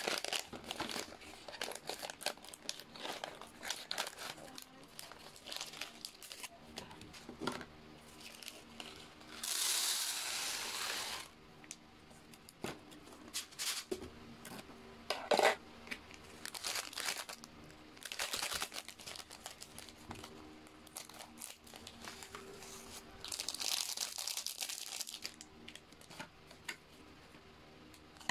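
Plastic and foil food packets of a self-heating rice kit being crinkled and torn open by hand, with a steady rush of dry rice being poured into the plastic tray about ten seconds in.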